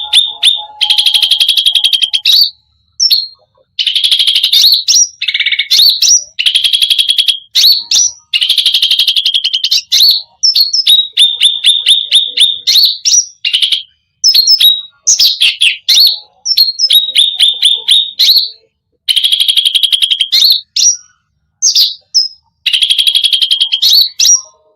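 Cucak rante songbird singing a loud, 'full isian' song: long runs of fast repeated notes, trilled so quickly they run together, broken by short pauses, with many phrases ending in a sharp rising flick.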